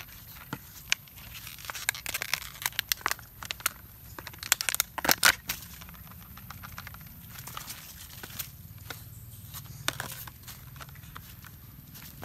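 Thin plastic water bottle crinkling and crackling in quick runs of sharp snaps as a young monkey grabs and pulls at it, loudest about five seconds in, then only a few scattered crackles.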